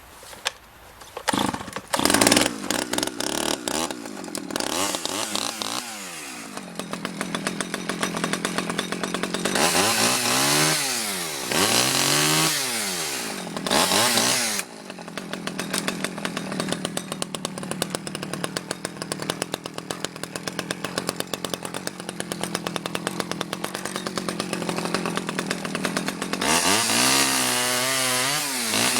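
Stihl 009 two-stroke chainsaw pull-started on the throttle, catching about two seconds in. It then runs, revved up and down several times, with the biggest revs around the middle and near the end.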